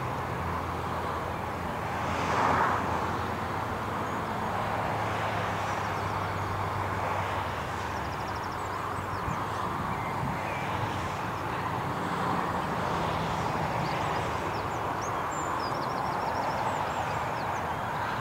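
Countryside ambience: a steady low drone of distant engine noise, swelling briefly about two seconds in, with birds chirping faintly in quick high series in the second half.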